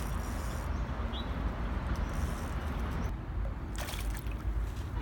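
A hooked carp thrashing and splashing at the water's surface, with the sharpest splash nearly four seconds in, over a steady low rumble.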